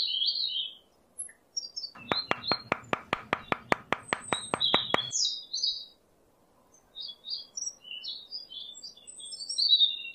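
Small birds chirping and tweeting, with a fast, even run of clicking taps, about six a second, lasting about three seconds from roughly two seconds in.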